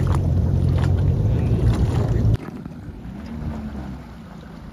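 Boat engines idling on the water: a loud, steady low hum that drops abruptly to a much quieter engine hum about two and a half seconds in, with a slight rise and fall in pitch near the end.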